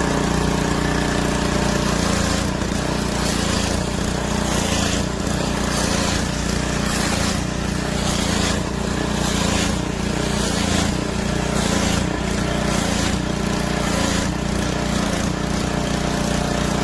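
Small gas engine of a 2300 PSI pressure washer running steadily, with high-pressure water spray hissing from the gun and swelling unevenly. The pressure is fluctuating, which the owner puts down to a faulty valve in the gun.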